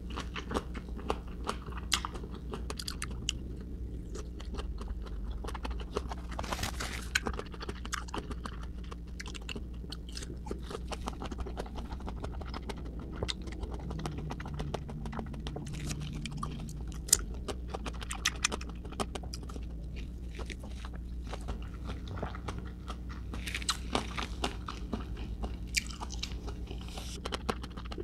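Close-miked biting and chewing of crisp persimmon slices, many short crunches throughout.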